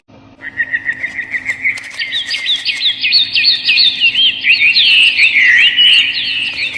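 Birds chirping: a rapid, continuous twittering that starts about half a second in and grows louder about two seconds in.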